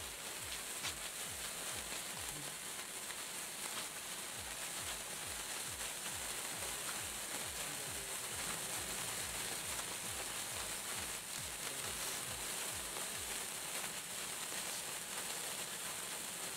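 Red-flame sparkler burning with a steady fizzing hiss, with faint low pulses repeating about three times a second underneath.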